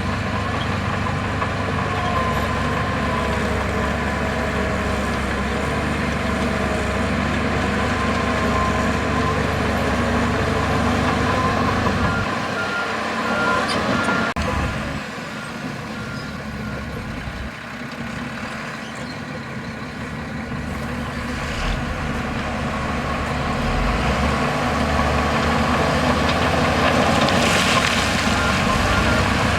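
Heavy diesel earthmoving machinery working, its engines running steadily. A reversing alarm beeps in a quick series about halfway through.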